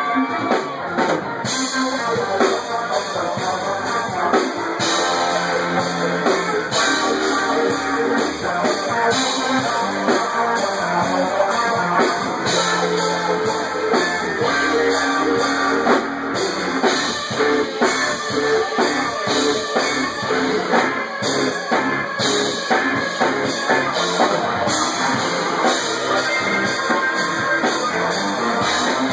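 Live band playing rock music with guitar and drums, recorded through a phone's microphone.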